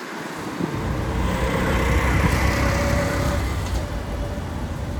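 Steady, loud engine rumble with a faint whine, cutting in suddenly.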